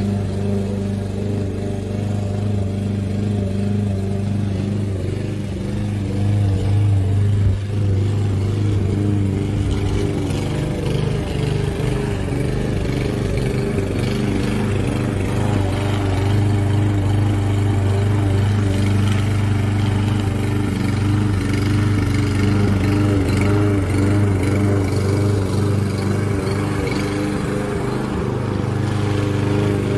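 Walk-behind gas lawn mower engine running at a steady speed while cutting grass.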